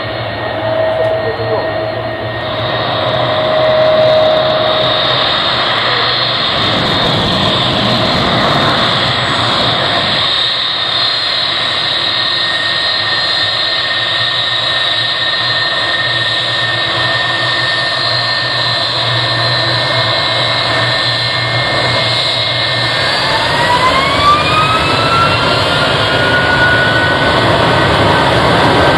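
Boeing 757-300's Rolls-Royce RB211 turbofans running at low power with a steady high whine over a jet rumble, then about 23 seconds in a rising whine as the engines spool up toward takeoff thrust.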